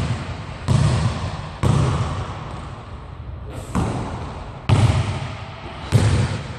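A basketball bouncing on a hardwood gym floor: five single echoing bounces about a second apart, with a longer pause in the middle.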